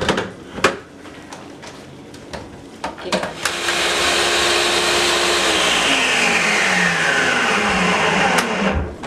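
Countertop blender puréeing cooked tomatoes with oil and shrimp broth. A few clicks as the jar is seated and the controls pressed, then about three seconds in the motor starts at high speed and runs steadily. About halfway through its pitch begins falling steadily as it winds down, and it stops just before the end.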